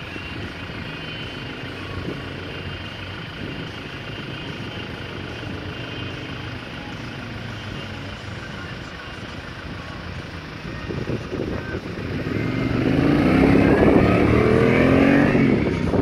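Yamaha XTZ1200 Super Ténéré's 1200 cc parallel-twin engine running through a twin exhaust as the bike is ridden at a distance, getting much louder over the last few seconds as it comes closer, its note rising and then dropping near the end.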